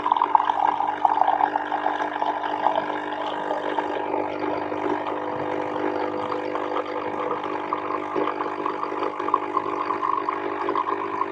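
Coffee machine running with a steady, buzzing drone that holds one pitch throughout and cuts off just after the end.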